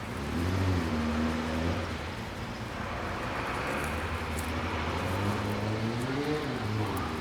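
A car engine running past, its note swelling about a second in and again later, rising and then falling in pitch as it goes by.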